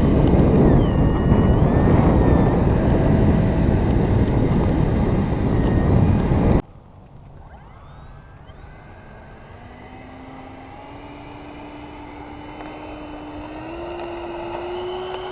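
Electric ducted fan of a Freewing F-86 Sabre RC jet: a loud, rushing whine with wavering tones that cuts off abruptly a little before halfway. After the cut, a fainter fan whine climbs steadily in pitch and grows louder as the fan is throttled up.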